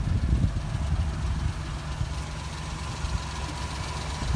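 1992 Suzuki Carry kei truck's 657 cc F6A three-cylinder engine idling steadily.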